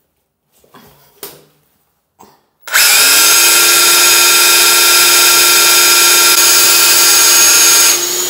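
Cordless rotary hammer with a dust-extraction attachment drilling into ceramic wall tile in drill-only mode, without hammering. A few light handling clicks come first; then, close to three seconds in, the motor starts suddenly with a steady high whine, runs for about five seconds, and eases off near the end.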